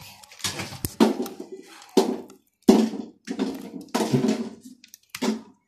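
Red spatula scraping a thick, sticky cheese mixture out of a cooking pot: a string of short scrapes and wet plops, about one every half second.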